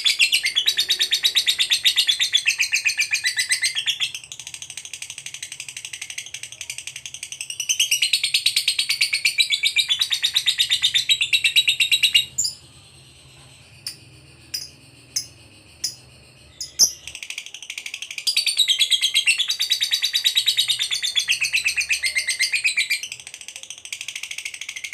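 Lovebird singing its long, fast, high-pitched chattering trill ("ngekek"). It comes in several long runs, with a softer stretch a few seconds in and, about halfway through, a pause of some four seconds broken only by a few short sharp chips.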